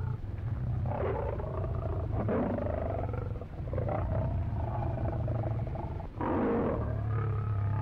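Animal calls, several in a row, each about a second long with a wavering pitch, over a steady low hum.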